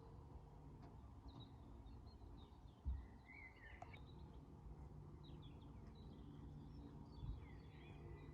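Faint birdsong: scattered short chirps and trills from small birds over a quiet, low outdoor rumble. Two soft, low thumps, about three and seven seconds in.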